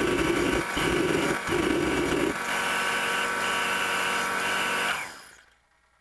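Diesel space heater's electric fan motor running with the fan spinning, its once-tight bearings now freed up: a steady whirring with a pulsing lower hum in the first couple of seconds. About five seconds in it quickly winds down and stops.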